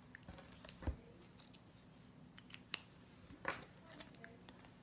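Faint handling sounds over a quiet room with a low steady hum: a soft knock about a second in, then a few light clicks and rustles, as cards and a mini whiteboard are moved about.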